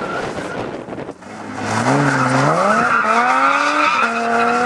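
Rally car engine pulling hard through the gears. After a rough rush of engine and gravel in the first second, the pitch climbs, drops at an upshift about three seconds in, climbs again and drops at another shift near four seconds.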